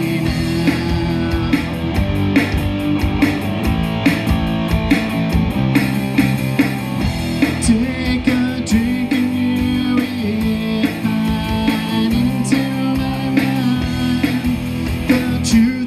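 Live rock band playing a song: electric guitar, bass guitar and drum kit, with a steady beat.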